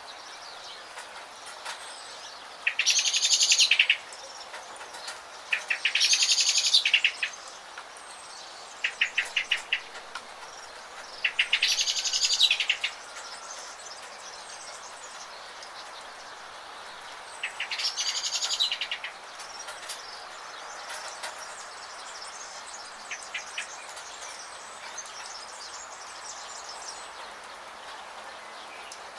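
A songbird singing five rapid trilled phrases, each about a second and a half long and a few seconds apart, followed by only faint chirps. Under it runs a steady hiss of rain.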